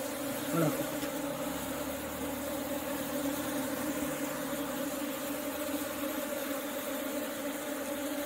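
A mass of honeybees buzzing in a steady, even hum.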